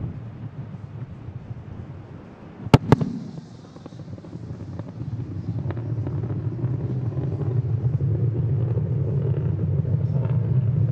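Double sonic boom from a returning Falcon 9 first-stage booster: two sharp cracks in quick succession a few seconds in. A low rumble follows and builds steadily as the booster descends on its landing burn.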